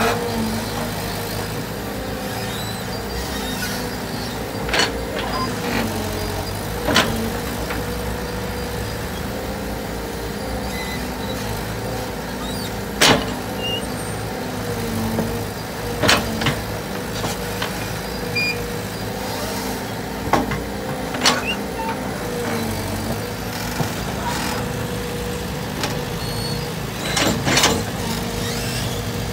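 Compact crawler excavator's diesel engine and hydraulics running steadily, the pitch dipping and recovering as the arm works under load while it mixes mortar. Sharp metal clanks come several times, spread through the stretch, as the bucket strikes the steel mixing tray.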